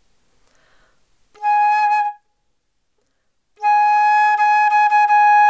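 Concert flute playing a held A flat in a long-tone exercise: a short note about a second and a half in, then the same note sustained from just past the middle, steady in pitch.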